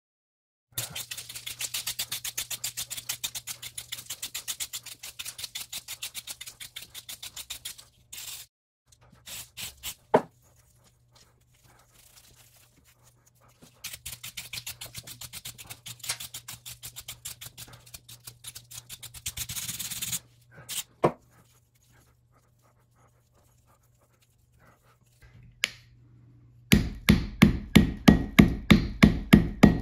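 Ball peen hammer beating dried, hardened paint out of a paintbrush's bristles on a steel anvil, with long runs of fast light strokes and a steel wire brush scrubbing the loosened paint from the bristles. Near the end come heavier hammer blows on the anvil, about three a second.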